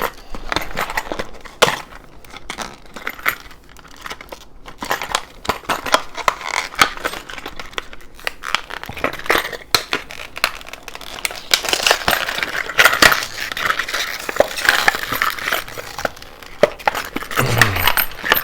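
Stiff plastic blister packaging crinkled and torn open by hand, with many sharp clicks and the clink of small metal keys being freed from it.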